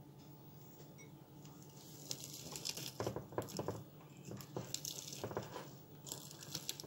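Fresh purslane stems and leaves pressed by hand into a glass jar: soft, quiet rustling and crackling. It starts about two seconds in and is busiest in the middle.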